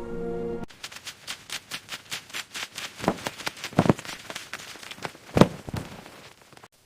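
Tools chipping and cracking ice: a fast run of sharp taps, about five a second, with a few heavier cracking hits. Music cuts off less than a second in.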